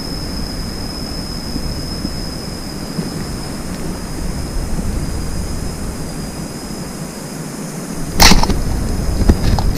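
Homemade fishing slingshot loosed about eight seconds in: one sharp snap as the rubber bands release and fire the arrow toward the water, followed by a smaller knock about a second later. Before the shot there is only a steady rushing background with a thin high tone.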